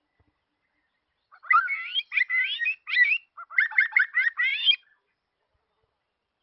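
A songbird singing two quick runs of varied, warbling whistled notes, starting about a second and a half in and lasting about three and a half seconds.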